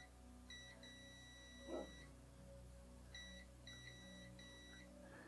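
Near silence with faint electronic beeping: a high, steady tone sounding in irregular beeps of different lengths, the longest over a second. There is one soft knock about two seconds in.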